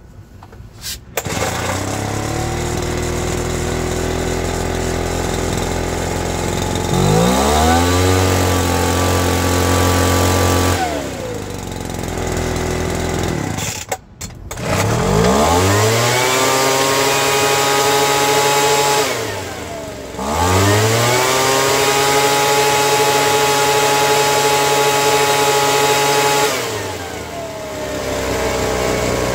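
Two-stroke engine of a Poulan Pro gas leaf blower running: it catches about a second in and idles, then is throttled up to a steady high rev and back down. After a brief break near the middle it runs again and is revved up twice, each time held for several seconds before dropping back to idle. In the first run the flywheel keyway is off centre, which causes low rpm.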